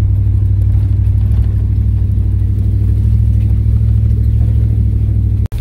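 Steady low rumble of a 1996 GMC Sierra K1500 pickup cruising along a dirt trail, heard from inside the cab, holding an even pitch and level. The sound cuts out abruptly for a split second near the end.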